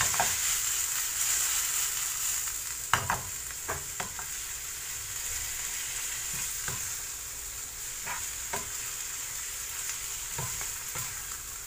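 Marinated chicken pieces sizzling in oil in a frying pan, slowly getting quieter, while being stir-fried with two wooden spatulas. Scattered knocks of the spatulas against the pan, the sharpest about three seconds in.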